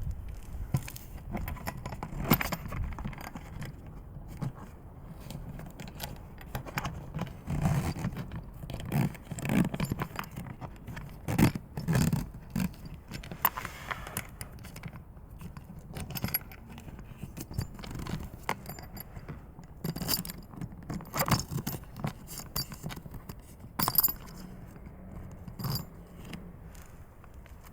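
Irregular clicks, rattles and scrapes of a collapsible one-touch fishing keep bucket being handled, with occasional soft thumps.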